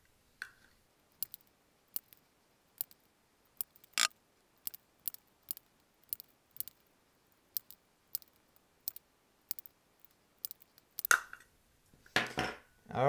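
Single hole punch snapping through the thin metal wall of a cat-food can, one sharp click after another, about one to two a second, as a row of stove vent holes is punched around the rim. Louder handling noise comes near the end.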